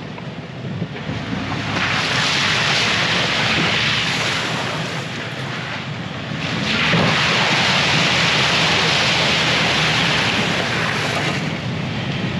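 Ford F-150 pickup driving through muddy puddles on a dirt trail, its tyres throwing up water in two long splashing rushes, one from about two seconds in and another from about seven seconds in, each lasting four to five seconds, over the steady low running of the engine.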